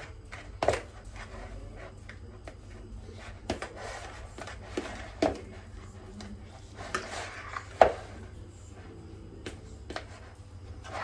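Fork mashing soft, well-boiled potatoes in a bowl: irregular clicks and knocks of the fork against the bowl with soft squashing between them, the sharpest about a second in and again near eight seconds.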